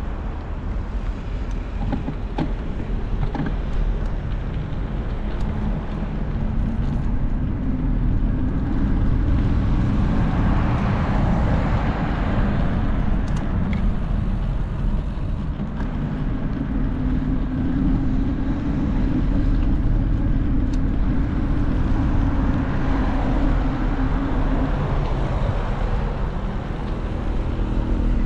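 Street traffic: motor vehicles running and passing, a steady low rumble that swells twice, about ten seconds in and again around twenty seconds in.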